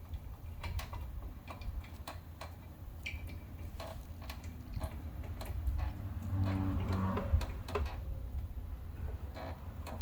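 Light metallic clicks as a brake caliper is wiggled back and forth on its mounting bracket to line up the slide bolts, one click about every half second, with a louder stretch of handling noise about six to seven seconds in.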